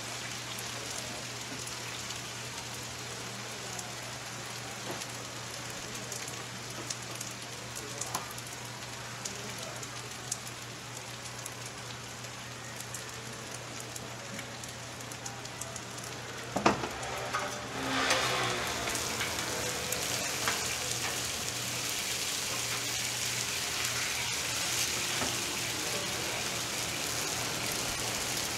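Thin pancakes sizzling on a flat-top griddle, a steady hiss with scattered light clicks of metal spatulas. About two-thirds of the way through there is a sharp knock, after which the sizzling grows louder and brighter.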